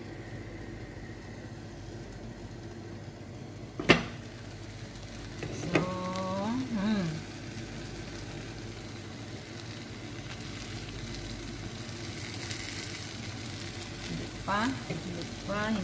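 Vegetable omelette egg mixture frying in a nonstick pan over a low gas flame, a steady gentle sizzle. A single sharp click about four seconds in.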